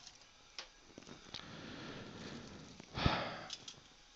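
A person's breathing, with one sharp breath about three seconds in and a few light clicks before it.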